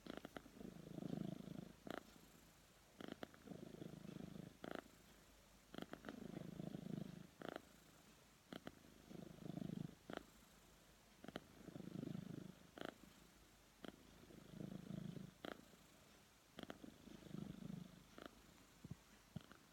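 A cat snoring faintly in its sleep: a low rasp on each breath, about one every two and a half seconds, with short clicks between the breaths.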